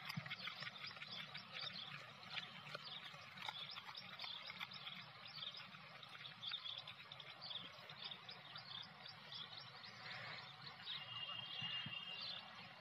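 Faint outdoor ambience: many short, high chirps scattered throughout over a low, steady rumble, with a brief steadier high call near the end.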